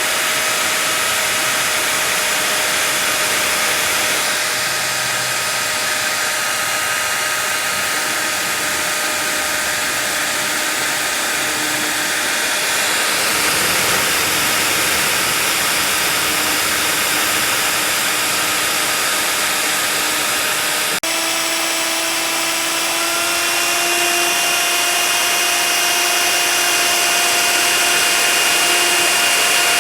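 CNC router spindle running steadily while milling expanded PVC sheet: a loud, even hiss with a steady whine. About two-thirds of the way through the sound changes abruptly and the whine sits a little higher.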